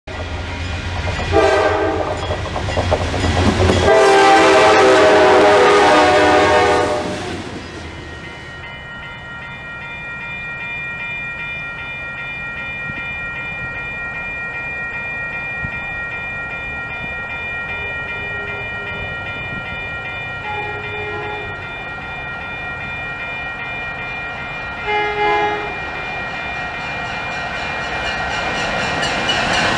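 Commuter train horn blowing a short blast and then a long one as a train approaches. Then a grade-crossing bell rings steadily while a second commuter train's horn sounds several shorter times in the distance, and the train's noise grows louder near the end as it comes near.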